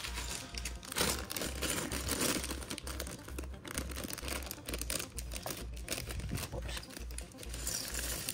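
Clear plastic Lego parts bag crinkling as it is torn open and handled, with the bricks inside shaken out toward the end.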